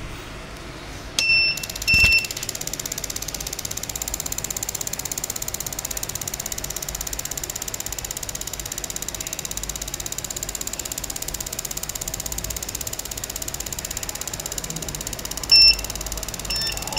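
Fast, steady mechanical ticking, with two short electronic beeps just after the start and several more near the end.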